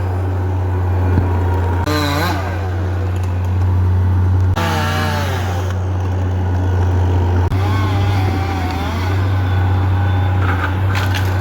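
An engine running steadily with a low, even hum, and a few brief falling-pitch sounds over it.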